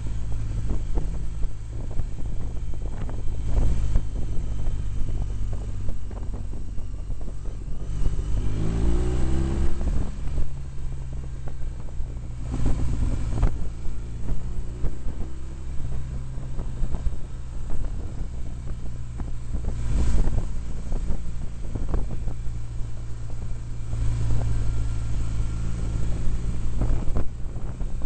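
BMW R1200GS Adventure's flat-twin engine running under way, the revs climbing for about two seconds near nine seconds in before dropping back, with wind rushing and buffeting over the microphone.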